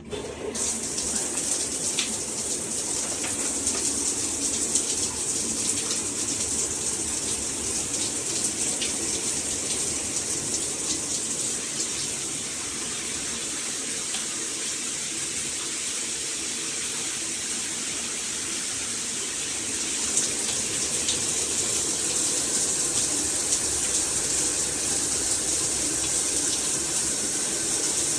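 Water spraying from a Hibbent all-metal shower head, coming on suddenly and then running steadily. The spray gets a little quieter about twelve seconds in and louder again about twenty seconds in.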